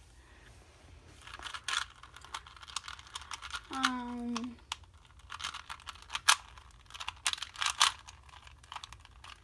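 A plastic Rubik's Cube being twisted quickly by hand while it is scrambled, its layers clicking and clacking in irregular runs. There is a brief hummed voice sound about four seconds in.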